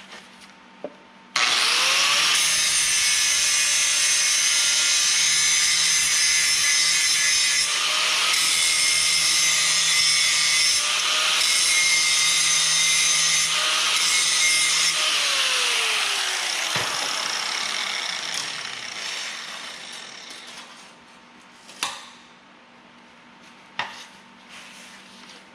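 An angle grinder spins up with a rising whine about a second and a half in, grinds steel steadily for about thirteen seconds, and is then switched off and winds down with a falling whine. This is the edge prep before welding. A few sharp knocks of metal follow near the end.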